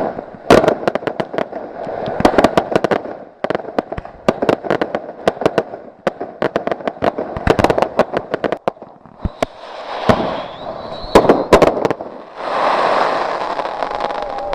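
Fireworks going off: repeated bursts of rapid, sharp crackling, separated by short lulls, then a steady hiss near the end.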